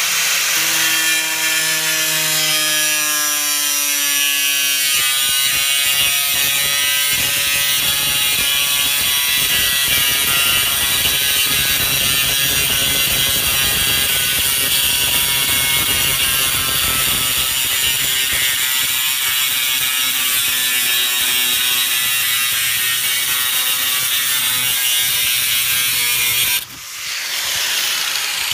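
Makita angle grinder with a cutoff wheel cutting through perforated decorative steel sheet. The motor's pitch drops over the first few seconds as the wheel loads up in the cut, then holds steady. The cutting noise stops abruptly about 27 seconds in.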